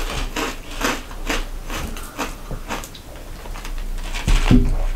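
Dry Malt-O-Meal Cookies & Cream cereal pieces being crunched and chewed close to the microphone: irregular crisp crunches, with a short low hum from a closed mouth near the end.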